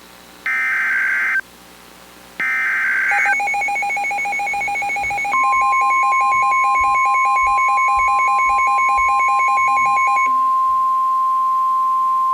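Emergency Alert System weather alert tones: two short screeching digital data bursts of the SAME header about a second apart, then a rapidly pulsing two-tone alarm beep, joined about five seconds in by the steady NOAA Weather Radio warning alarm tone, a single tone near 1 kHz that holds on after the beeping stops about ten seconds in.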